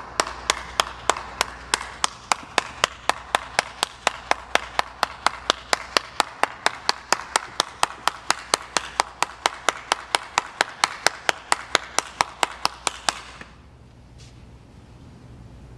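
One person clapping his hands steadily, about three to four claps a second, stopping about thirteen seconds in.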